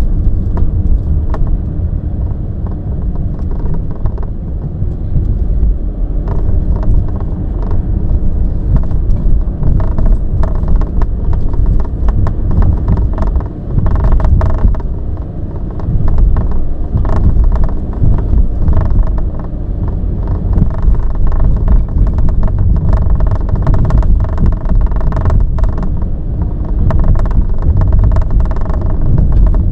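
Inside a VW T6.1 bus driving over a bumpy road: steady tyre and road rumble with many quick clicking rattles from the A-pillar trim, which is loose at its lower end and shakes on every bump.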